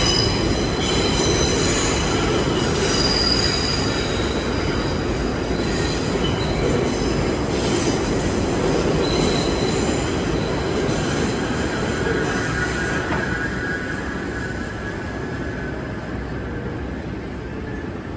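An R62A subway train pulling out of the station, its wheels rumbling on the rails with high-pitched wheel squeal. The sound fades gradually as the last cars leave.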